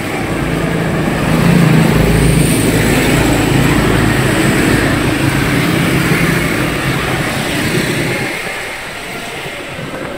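Street traffic: a motor vehicle's engine running close by with a steady low hum. It grows louder about a second and a half in and fades near the end.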